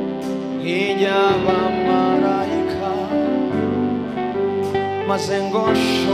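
Live gospel worship music: a man sings a slow, tender melody over guitar-led band accompaniment with sustained chords.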